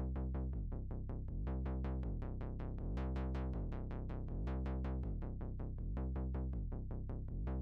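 Background electronic music: a quick, steady beat, about four strokes a second, over a low synth bass.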